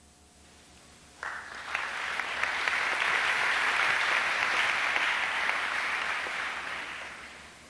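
Audience applauding: the clapping starts suddenly about a second in, swells, then dies away near the end.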